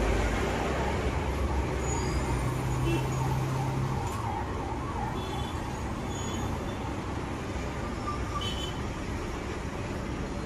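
Steady road-traffic noise from passing vehicles, with faint distant horn toots and a couple of faint clicks.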